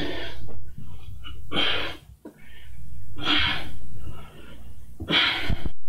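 Heavy, rhythmic breathing of a man exerting himself through Russian twists: a forceful exhale about every second and a half to two seconds, four in all.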